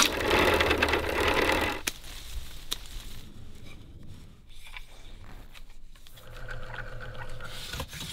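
Bamboo being worked in quick succession. First a loud rasping split as the cane is forced through a metal splitting ring, then soft knife scrapes and small clicks on the cane, then a small motor running steadily for about a second and a half near the end.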